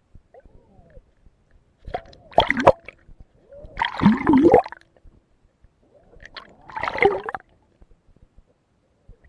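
Water gurgling and splashing in three loud bursts, about two, four and seven seconds in.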